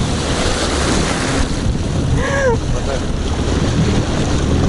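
Jet ski running at speed over open sea: a steady engine drone under wind buffeting the microphone and the rush of spray from the wake.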